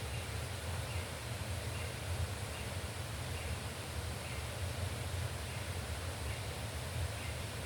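Steady rushing of a jungle river, with a faint high chirp repeating about once a second.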